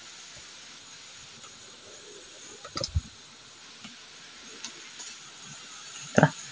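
Knocks and thumps of someone scrambling over rocks while handling the phone, with a steady hiss behind them. There is a cluster of knocks about three seconds in and one louder thump near the end.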